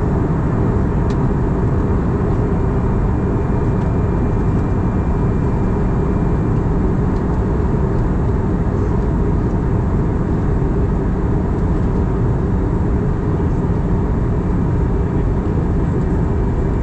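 Steady cabin noise of an Airbus A320 in flight, heard inside the cabin at a window seat beside the wing: an even, deep rush of engine and airflow noise that stays level throughout.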